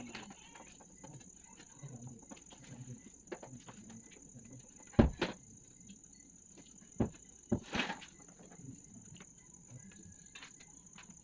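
Handling knocks from assembling a full-length mirror's frame and tubular stand: a sharp knock about five seconds in, quickly followed by a second, then a few more clicks and a short scrape around seven to eight seconds in.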